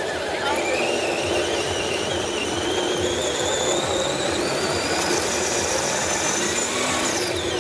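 Electric drive motor and gearbox of an eight-wheeled RC scale trial truck whining under load as it climbs a steep dirt slope. The pitch rises slowly, holds, then drops away near the end.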